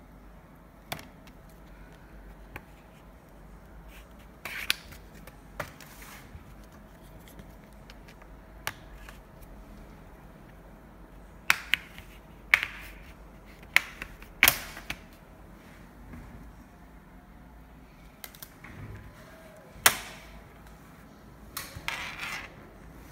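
Plastic snap clips of an Acer Aspire E5-573G laptop's case clicking loose one after another as a plastic card is pried along the seam, with short scrapes of the card between the snaps. The clicks come at irregular intervals, and the sharpest is about twenty seconds in.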